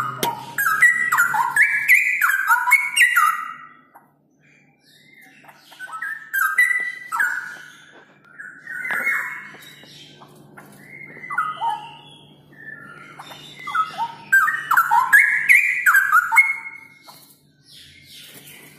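Straw-headed bulbul (cucak rowo) singing loud, high phrases of quick whistled notes. It sings about five phrases of one to three seconds each, with short pauses between them; the longest phrases are near the start and near the end.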